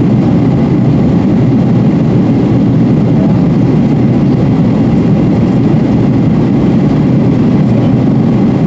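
Steady cabin noise of a Boeing 737-800 in flight, heard from inside the cabin behind the wing: the even, low roar of its CFM56 turbofan engines and the airflow over the fuselage, with no change in pitch or level.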